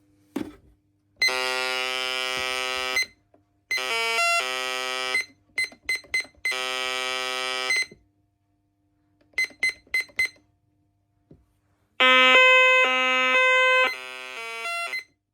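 Menvier TS510 intruder alarm panel sounding a sequence of electronic tones: three long buzzing tones with short beeps between them, a quick run of four beeps, then a few seconds of warbling between alternating pitches that drops quieter near the end.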